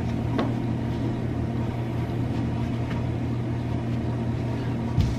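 Steady low mechanical hum of room tone, with a soft thump near the end.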